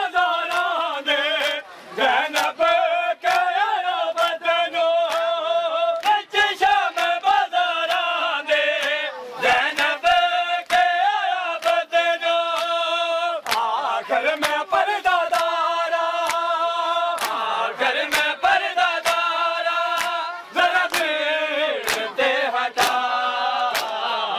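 Male voices chanting a noha, a Shia lamentation, in long held sung lines. Under the chant runs a steady rhythm of sharp slaps from a crowd of mourners beating their bare chests (matam).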